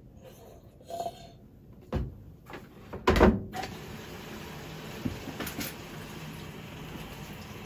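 Lid of a top-loading washing machine shut with a loud clatter a little after three seconds in, after a couple of smaller knocks from the bottle and lid. A steady hum follows from the running machine, with a few light clicks.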